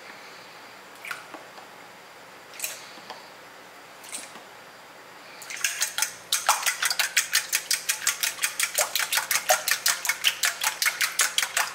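A few light clinks of a spoon against a stainless steel bowl. Then, about halfway through, eggs start being beaten briskly in the bowl, the utensil striking the metal about five times a second.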